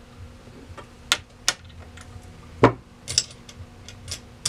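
About half a dozen separate metallic clicks and clacks from a Victor 77 gumball vending mechanism being handled for a test of its 25-to-50-cent conversion, the loudest about two and a half seconds in.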